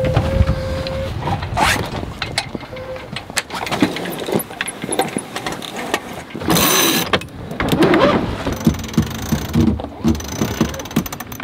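Wind buffeting the microphone on a sailboat under way in a gust, with scattered clicks and knocks from rigging and deck gear. There is a brief steady whistle in the first second and a short rush of noise about six and a half seconds in.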